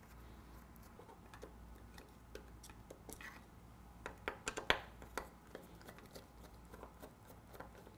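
Faint, scattered clicks and light taps of a screwdriver backing out the mounting screws of a safe-lock keypad base. A few sharper clicks come around the middle.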